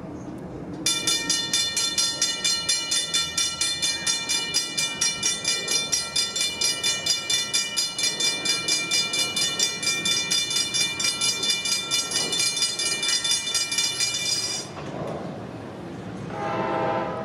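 Safetran Hybrid electronic railroad crossing bells ringing in rapid, even strikes while the gates come down, warning of an approaching train; the ringing starts about a second in and stops about three-quarters of the way through, once the gates are down. Near the end a train horn sounds from the oncoming NJ Transit diesel locomotive.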